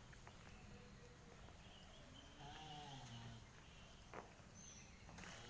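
A male tortoise gives one faint, moaning mating call about two seconds in, rising and then falling in pitch for about a second. A single click follows a second later.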